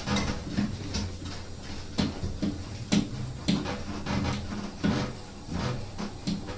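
Irregular knocks and clicks of hands reconnecting the water inlet hose to the back of an automatic washing machine, over a steady low hum.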